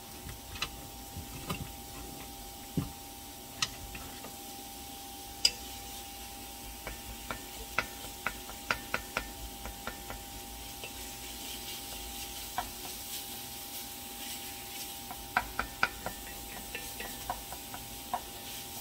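Wooden spoon stirring diced butternut squash and onion in olive oil in a pan, clicking and scraping against the pan, with a faint sizzle. The clicks come more often in the second half, over a faint steady tone.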